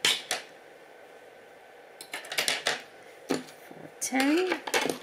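Crochet hooks clicking and clinking lightly as they are picked up and sorted, in several short groups of clicks. Near the end, a brief wordless voice sound.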